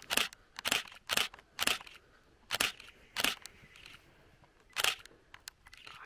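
Camera shutters firing single shots again and again: sharp clicks about half a second apart at first, then at uneven gaps, with a few fainter clicks near the end.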